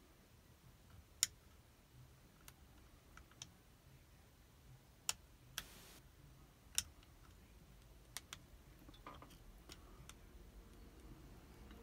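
Faint, scattered sharp metallic clicks from a pick lifting the levers inside a safety deposit box lever lock held under tension. The clicks come at irregular intervals, with the sharpest about a second in and again around five and seven seconds.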